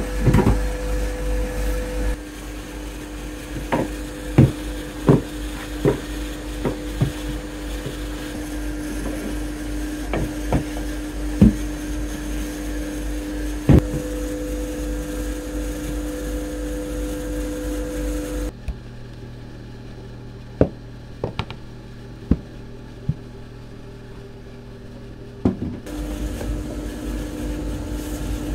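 Steady electric motor hum from a soba dough-making machine, broken by scattered sharp wooden knocks and clunks as the dough and wooden tools are handled. About two-thirds of the way through the hum drops away for several seconds, leaving only the knocks, then it returns near the end.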